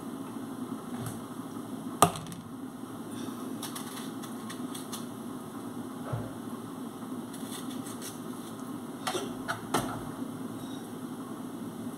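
Dishes and utensils being handled: one sharp clack about two seconds in and a few lighter clicks near the end, over a steady low hum.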